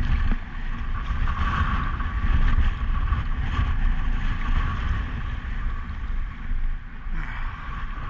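Strong wind buffeting the kayak-mounted camera's microphone in gusts, a heavy low rumble that rises and falls, with choppy water sloshing around the sea kayak's hull.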